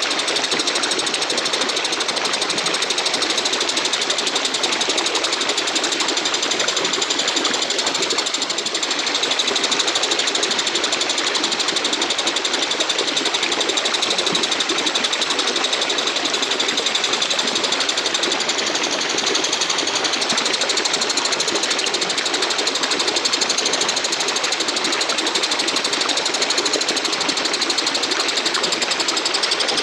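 Walang kecek katydid (bush cricket) calling: a steady, fast, rasping chirr that runs on without a break.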